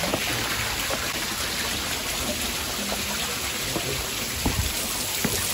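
Steady splashing and pattering of water: a small fountain jet falling into a rock pool and water dripping and spraying off the rock face.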